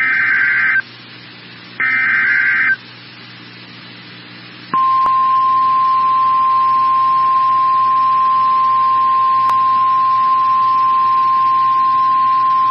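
NOAA Weather Radio alert signal: two short screeching SAME data bursts, the last of a set of three, then a pause with faint static, then the steady single-pitch weather radio alert tone starting about five seconds in. This sequence heralds a newly issued warning, here a severe thunderstorm warning.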